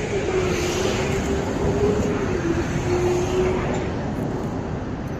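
Road traffic: a vehicle passing, its tyre and engine noise swelling over the first two seconds and then fading.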